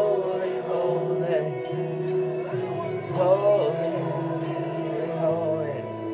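A man singing with an electric guitar; the voice slides between notes and holds them over sustained chords.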